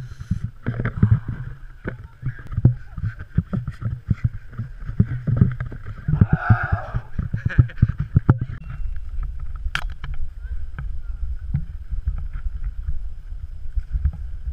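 Handling noise from a body-worn action camera while its wearer runs: rapid low knocks and thumps jolting the microphone, a voice calling out briefly about six seconds in, then a steady low wind rumble on the microphone from about eight seconds on.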